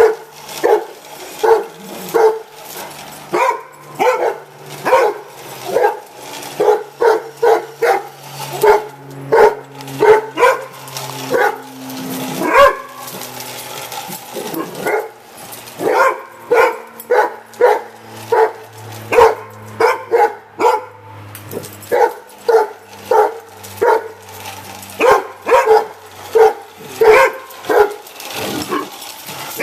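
Rhodesian ridgebacks barking over and over, about one or two sharp barks a second, with a short lull about halfway through.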